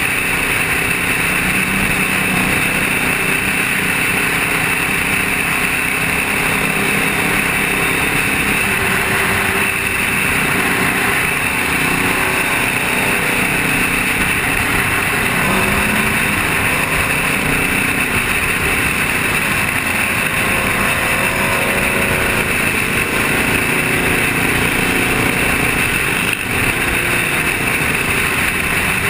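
Sport motorcycles running at highway speed, heard from a rider's helmet camera: a steady rush of wind over the microphone with the engines' drone shifting in pitch underneath.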